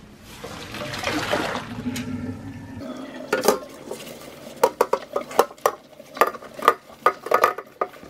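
Water splashing into a stainless steel sink for about two seconds as the boiled water is emptied from a Yamada wrought-iron wok, then the wok being scrubbed with a soapy sponge, its thin iron body knocking and clanking against the sink in quick irregular strokes.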